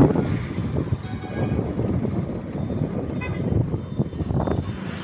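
Outdoor traffic rumble with a short vehicle horn toot about three seconds in.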